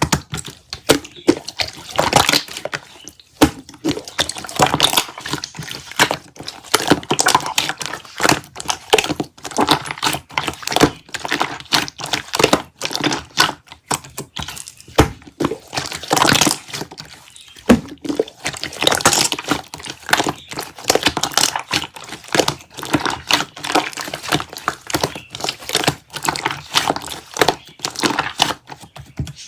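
Slime being squished and stretched by hand: a continuous run of sticky clicks, pops and crackles.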